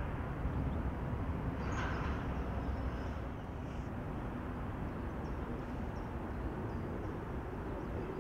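Steady low rumble of outdoor city ambience, likely distant traffic, with a few faint high chirps, probably birds. A brief brighter sound comes about two seconds in.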